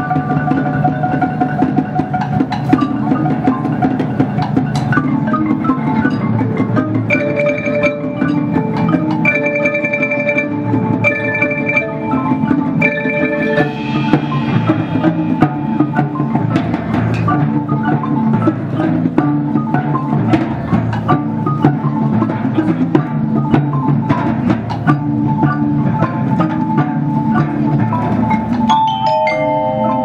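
An elementary-school percussion band playing continuously, with marimba- and xylophone-type mallet instruments carrying the melody over the rest of the percussion. A short high melodic figure repeats several times in the first half.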